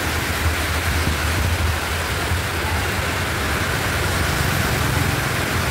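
Heavy rain pouring down steadily, with traffic going by on the wet road and a steady low rumble underneath.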